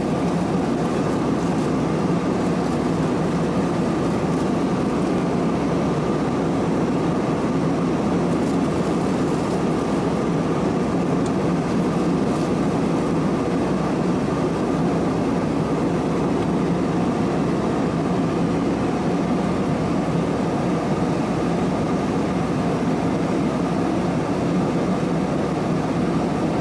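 Steady cabin noise of an Airbus A320-216 in cruise, heard inside the cabin: the rush of air over the fuselage and the drone of its CFM56 turbofan engines, with a faint steady tone above it.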